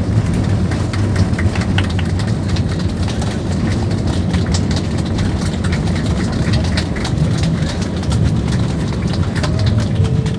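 Airbus A320 cabin on the ground after landing: a steady low rumble of the wheels on a rough runway and the engines, with many small rattles from the cabin fittings throughout.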